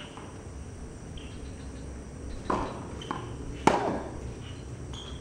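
Tennis balls being struck by rackets during a practice rally on a hard court: a few sharp pops in the second half, the loudest about three and a half seconds in.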